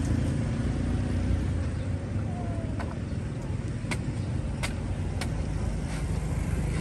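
Street traffic running steadily past, a low rumble of engines and tyres, with a few light clicks and knocks partway through.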